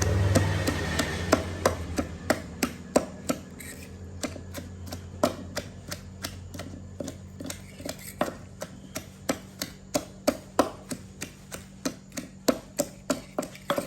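Pestle pounding in a mortar, crushing onion, garlic and other ingredients for an Isan pounded dip: a steady run of sharp knocks, about three a second.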